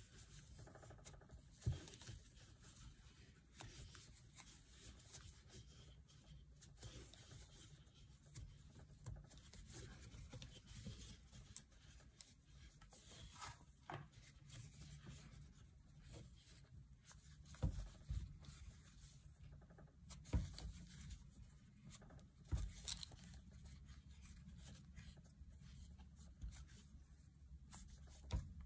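Faint rustling and scraping of thick tape yarn being drawn through stitches with a 7 mm metal crochet hook, working double crochet. A few short, sharp knocks come now and then.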